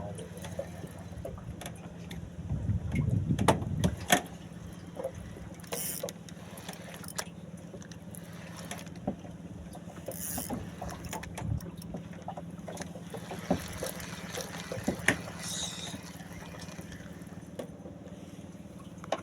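Small fishing boat's engine running with a steady low hum, with scattered knocks and clicks from gear on the boat and a louder bump about three to four seconds in.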